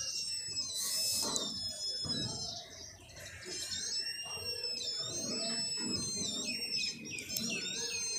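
Satellite finder meter's signal tone: a high, whistle-like tone that wavers and glides up and down in pitch as the dish is swung in search of the satellite, its pitch following the changing signal strength. Low rustling and knocks from handling the dish lie under it.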